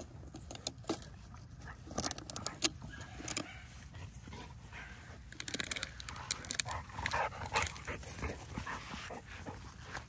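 XL bully dogs whimpering and yipping, in a run of short high cries in the second half. A few sharp clicks come about two to three seconds in.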